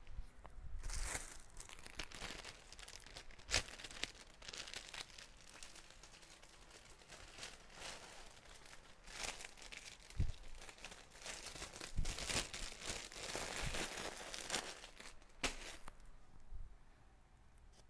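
Clothing rustling and crinkling in irregular bursts as garments are handled and pulled on, with a couple of sharp clicks and one dull thump.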